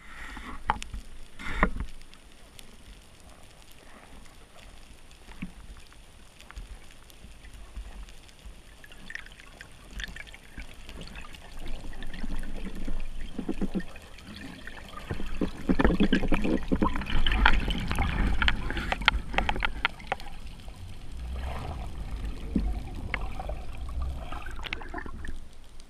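Underwater water noise around a freediver: a low steady rush with scattered sharp clicks, and louder bubbling, crackling stretches about halfway through as the diver moves and exhales bubbles.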